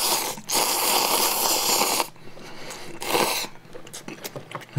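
A person slurping instant ramen noodles: a loud, hissing slurp in two pulls, the second lasting about a second and a half, then a shorter slurp about three seconds in.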